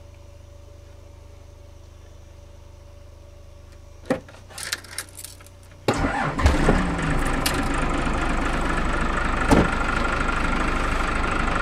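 A few clicks at the controls, then the motorhome's Isuzu diesel engine starts about six seconds in, after its glow plugs have been pre-heated, and settles into steady running at idle.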